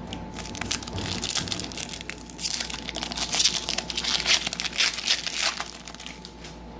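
Foil wrapper of a Topps Chrome baseball card pack being torn open and crinkled by hand: a dense crackling that is loudest in the middle and dies down near the end.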